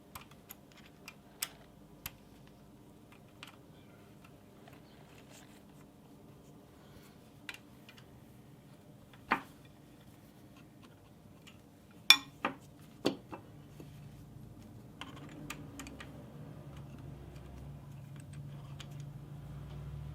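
Scattered sharp clicks and a few louder metal knocks of hand tools working the eccentric pins and cover of a Schaublin 102VM lathe headstock. A faint low hum comes in about three quarters of the way through.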